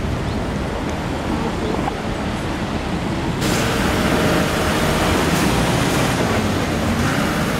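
Steady outdoor street noise of traffic and wind, a continuous rushing hiss that becomes louder and hissier about three and a half seconds in.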